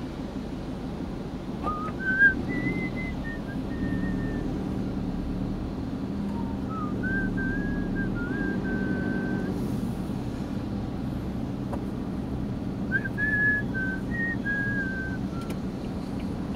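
A man whistling a slow tune in three phrases with pauses between them, over the steady hum of a van's engine and road noise heard from inside the cabin.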